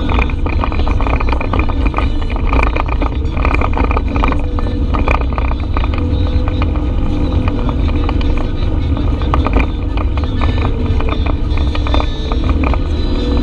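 Side-by-side UTV engine running while driving along an off-road trail, with frequent short clicks and knocks.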